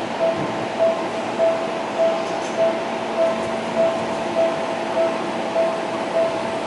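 Electronic railway warning signal beeping in an even repeating pattern, about one and a half beeps a second, over steady station background noise, as a train approaches.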